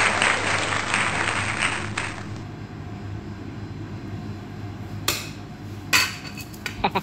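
Applause, dying away about two seconds in; then a low steady hum with two light knocks near the end.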